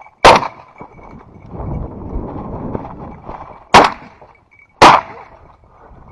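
Three shotgun shots: one just after the start, then two more about three and a half seconds later, a second apart.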